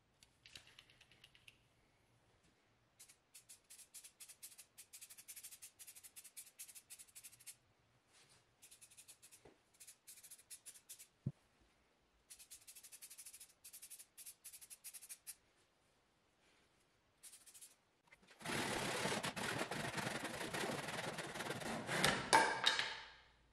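Aerosol spray paint can being shaken, its mixing ball rattling in several runs of quick clicks. Near the end comes a loud, steady rushing noise lasting about five seconds.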